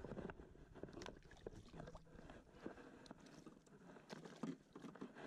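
Faint, scattered splashes and small knocks from a hooked grouper thrashing at the water's surface beside a kayak as it is landed by hand.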